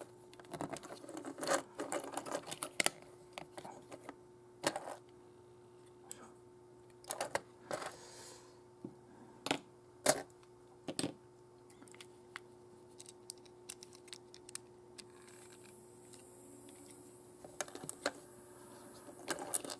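Hard parts of a Mazinger Z Hover Pilder model clicking, tapping and knocking as it is handled, pressed together and set down on a table: a scattered series of sharp clicks over a faint steady hum.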